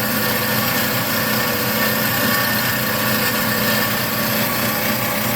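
Cosen C-420NC horizontal bandsaw running steadily: a machine hum with several held tones over a high hiss. The blade is being run slowly because its condition is unknown.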